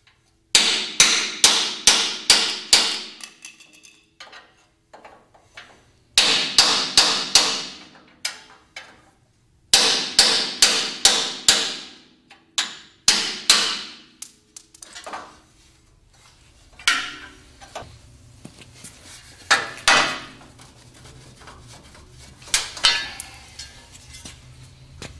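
Hand hammer striking metal on a bare steel truck frame: three runs of quick blows, about two to three a second, each blow ringing briefly. Then a few scattered, quieter knocks.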